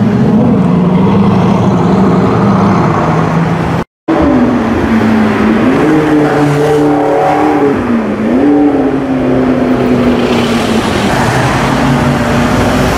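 Supercar engines passing on a busy city street: first a steady engine drone, then, after a brief cut about four seconds in, another engine revving, its pitch rising and falling twice, over traffic noise.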